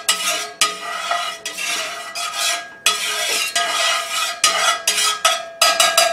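A slotted metal spatula scraping and clinking against the bottom of a cast-iron skillet in repeated strokes as oil is spread around the pan. The pan rings faintly under the strokes, which come faster near the end.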